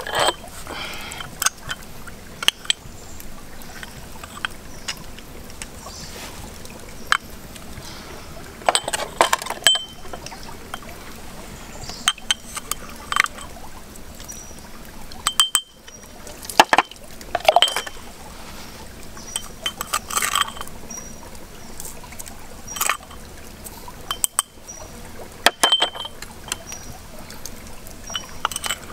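A plastic spoon clinking and scraping against a small ceramic cup as seasonings are scooped out and sprinkled onto raw pork ribs in a wok, in a string of short, irregular clinks and taps. A faint short high chirp repeats about once a second in the second half.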